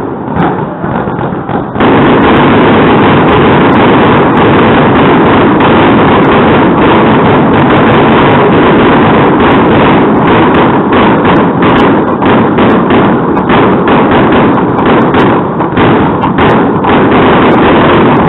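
Fireworks display: aerial shells bursting and crackling in a dense, continuous barrage of many sharp bangs. It starts about two seconds in, after a quieter moment.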